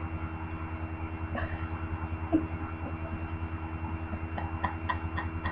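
A steady low electrical hum with a faint high whine. Over it come a short soft vocal sound a little after two seconds in, and a run of quiet stifled giggles near the end.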